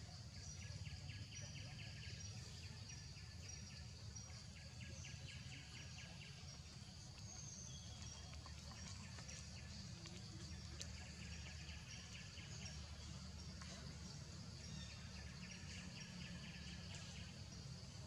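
Faint forest ambience: insects trilling in short bursts of rapid pulses that come back every few seconds, over a steady high buzz and a low rumble.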